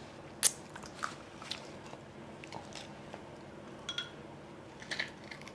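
Close-up eating of steamed seafood: quiet bites and chewing with scattered short, sharp clicks, the loudest about half a second in.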